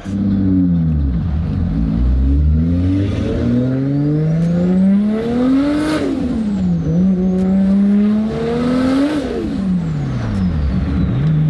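Nissan Skyline R32 GT-R's single-turbo RB26 straight-six with a straight-pipe exhaust, pulling hard: revs climb for about six seconds, dip at a gear change, climb again, then fall back and settle to a steady note near the end. A high whine rises and falls along with the revs.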